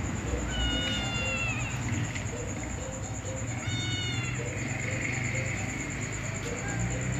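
Domestic cat meowing: two high, drawn-out meows of about a second each, the first about half a second in and the second near the middle, each dropping in pitch at its end. A steady low hum and a constant thin high whine run underneath.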